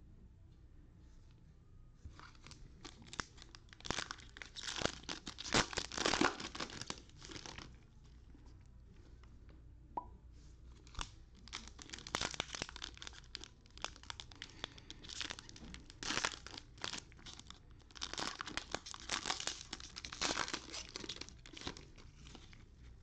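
Foil trading card packs being torn open and crinkled by gloved hands, in several bursts of crackling and tearing with short pauses between.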